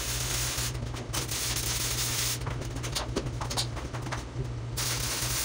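Stick welding arc from an E6011 rod crackling and hissing in several short runs, each broken off by a brief pause. A steady low hum runs underneath.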